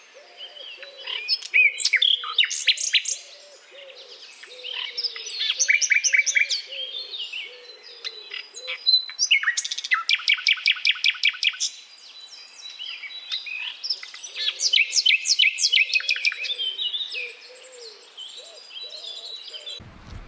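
Birds singing: loud bouts of rapid, repeated high notes come about every four seconds, with a softer, lower call repeating underneath.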